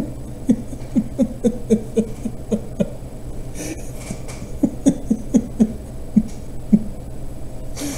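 A man chuckling in two runs of short pulses at about three a second, the first starting about half a second in and the second about four and a half seconds in.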